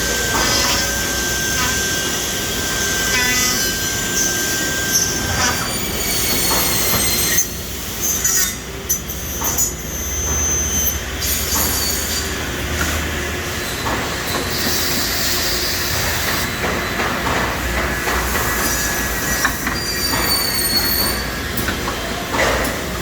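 Sturtz SE-4AS-CNC vertical welder cycling: steady machine noise with a held high tone for the first few seconds, short high squeals twice, and scattered clicks and knocks.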